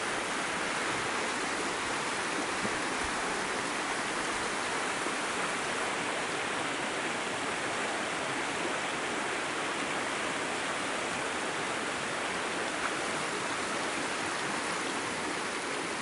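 Steady rushing of running water, an even hiss with no distinct events.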